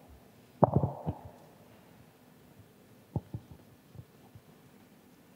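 Microphone handling noise: a cluster of muffled thumps about a second in, then a few softer separate knocks.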